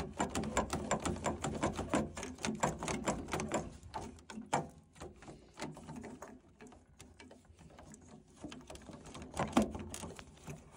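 Plastic flow manifold of a Worcester Bosch combi boiler being wiggled and pulled free of the boiler's pipework and chassis by hand: a rapid run of small clicks and rattles, dense for the first few seconds and then sparser, with an odd louder knock.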